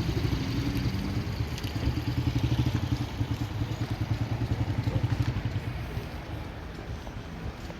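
A small engine running with a rapid, even low pulsing, which fades down about six seconds in.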